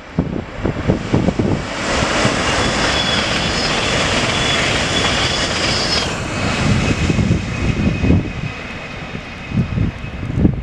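An EIP Pendolino high-speed electric train passes close at speed. A loud rush of air and wheel noise with a steady high whine builds about two seconds in and cuts off suddenly about six seconds in. Gusty wind buffets the microphone throughout.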